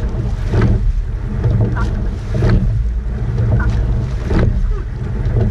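Rowing eight under way at race pace: a constant rush of wind on the microphone and water along the hull, with a sharp stroke sound from the oars and oarlocks about every two seconds.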